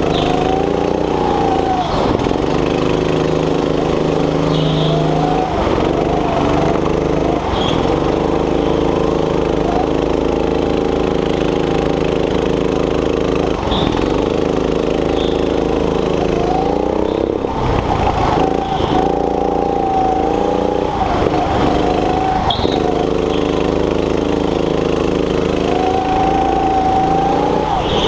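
A racing go-kart's small petrol engine heard from the driver's seat, running hard on the throttle; its pitch drops sharply every few seconds as the driver lifts for a corner, then climbs again on the way out.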